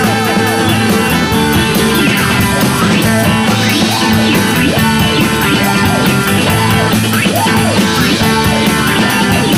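Background music: an instrumental stretch of a psychedelic rock song, with no singing.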